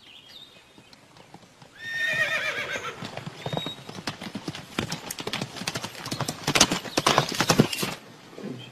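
A horse whinnies about two seconds in, then rapid hoofbeats clatter on the ground, growing louder before cutting off near the end.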